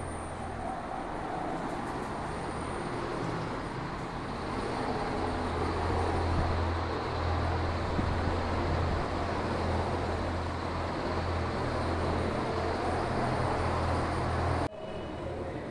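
Steady background noise: a constant low hum under a broad rushing sound, with no speech. It cuts off abruptly about a second before the end and comes back slightly quieter.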